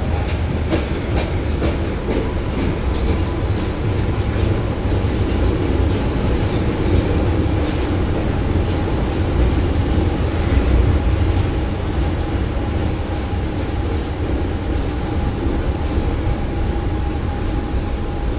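A former Tokyo Marunouchi Line subway car running, heard from inside: a steady low rumble of wheels and motors. A quick run of evenly spaced clicks comes in the first few seconds, and a faint steady whine comes in later.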